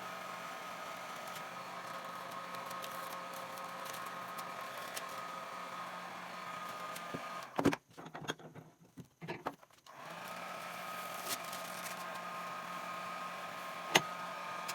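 Small electric motor running steadily. It stops with a few knocks about halfway through, then spins up again about two seconds later, followed by a single sharp click near the end.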